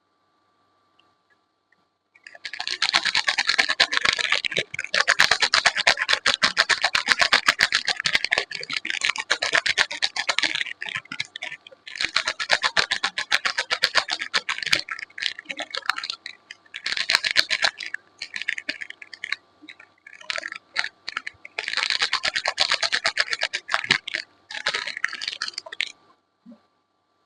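Close-miked crackling and scratching from soaps and their wrapping being handled and opened, coming in bouts of dense fine clicks with short pauses between them.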